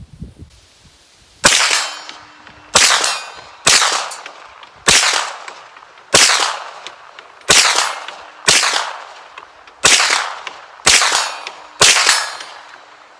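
Hi-Point 995TS 9mm carbine firing ten shots at a steady pace of roughly one a second, each shot trailing off in a short echo.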